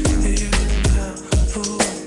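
Dance music with a steady drum beat and deep bass.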